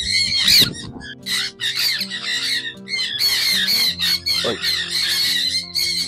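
A flock of sun conures screeching in repeated bouts, over background music with held notes that comes in about a second in.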